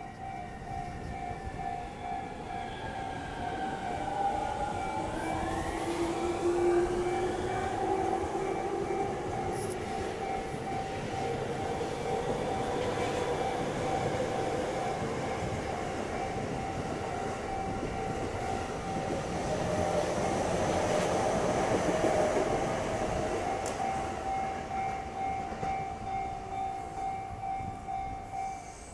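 A Japanese level-crossing alarm rings in a steady pulse and stops at the very end, while electric commuter trains pass through the crossing. A train's motor whine glides in pitch about four to eight seconds in, and the passing noise is loudest around seven seconds and again around twenty to twenty-two seconds in.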